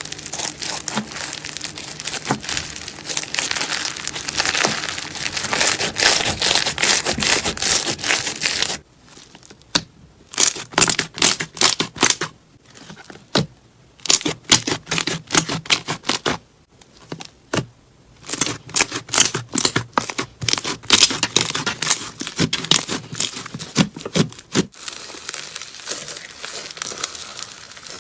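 Slime being squeezed and stretched by hand, its trapped air bubbles popping in dense crackling runs. The texture changes abruptly about 9 seconds in, to sparser separate pops, and again near the end.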